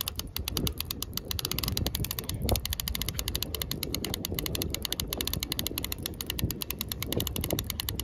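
Fishing reel being cranked steadily, its gears giving a rapid, even clicking, as a hooked burbot is reeled in on a bent rod.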